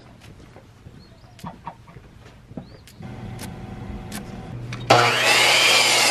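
Ridgid compound miter saw starting with a sudden loud onset about five seconds in and cutting into a wooden board. Before it there are only faint clicks and short chirps.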